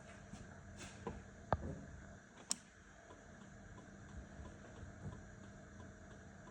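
A few sharp clicks and taps, about one, one and a half, and two and a half seconds in, over a faint steady hum.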